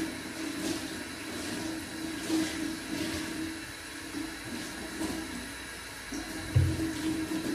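Water running from a tap in a steady hiss, with a dull thump about six and a half seconds in.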